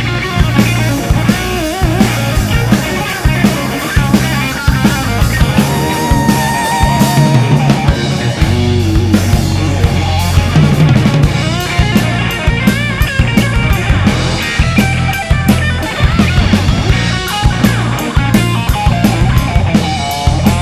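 Rock band playing a slow rock ballad: a lead guitar solo of bending, wavering notes over drum kit and bass.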